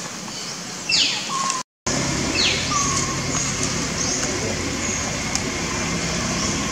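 A bird calling twice, each a quick whistle falling in pitch and ending on a short held note, about a second and a half apart. Under it runs a steady high hiss, and a low hum comes in after a brief dropout near two seconds.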